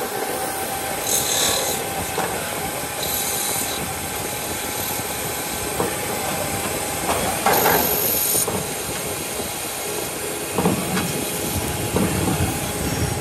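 CNC lathe running, its spindle spinning a cast aluminium motorcycle wheel hub while the turret tool cuts it: steady machining noise, with a few brief high hissing bursts.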